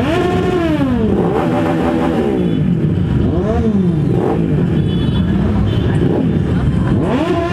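Several motorcycle engines idling at a start line, with riders blipping the throttle: about five revs that rise and fall back in pitch, a sharp one at the start, a longer held one a second or so in, and another near the end.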